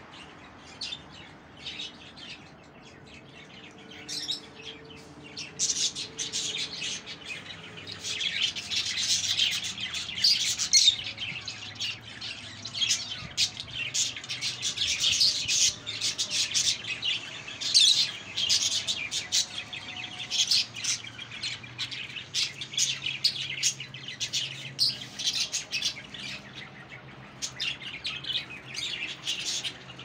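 A flock of caged budgerigars chattering, with many quick overlapping chirps and squawks that grow busier and louder a few seconds in.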